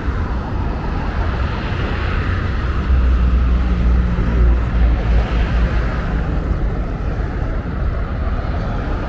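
Outdoor traffic noise: a motor vehicle's low engine rumble, swelling to its loudest about three to five seconds in, over a steady hiss.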